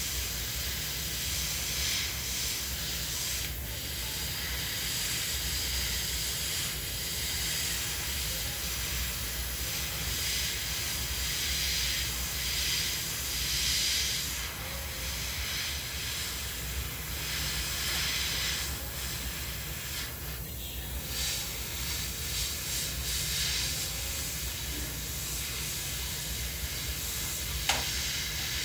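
Gravity-feed airbrush spraying green paint: a continuous hiss of air that swells and eases as the trigger is worked, over a steady low hum. The hiss briefly drops about two-thirds of the way in, and there is one sharp click near the end.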